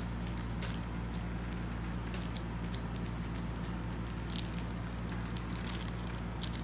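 Plastic courier mailer bag crinkling and rustling in scattered short crackles as it is handled to be opened, over a steady low hum.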